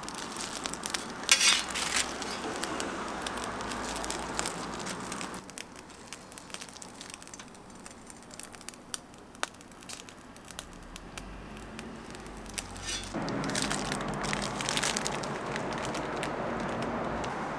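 Ham-and-egg toast sizzling on a flat-top griddle while a metal spatula scrapes and knocks on the hot plate, with a few sharp scrapes about a second in. The sizzle drops away in the middle and a steady stall noise comes back near the end.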